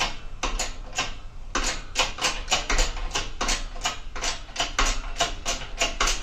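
A quick, irregular run of sharp clicks and knocks, several a second, from socket tools working on the flywheel bolts.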